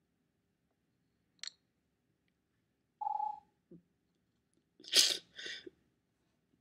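A man crying: sniffles and short choked sobbing breaths with silences between them, the loudest a pair of sharp sniffs about five seconds in.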